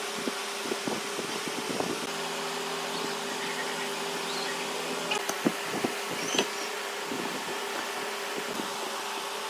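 Steady hum of an electric fan, with scattered light knocks and clicks from wooden pieces and clamps being handled on a workbench, mostly in the first two seconds and again about five to six seconds in.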